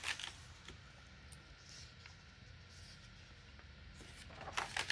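Faint paper rustling and light handling noises of a printed magazine's pages, just after the start and again in a short cluster near the end, over a low steady hum.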